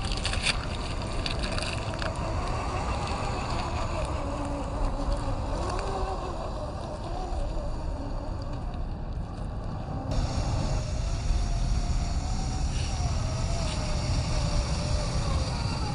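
Brushless electric motor of a 1/10-scale RC crawler (Fusion SE 1800kv) whining as the truck drives off-road. The whine rises and falls with the throttle over a low rumble.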